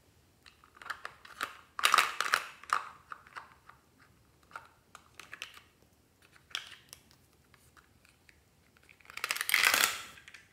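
Hard plastic toy pieces clicking and clattering as they are handled, with a dense run of clicks about two seconds in and a louder rustling clatter near the end.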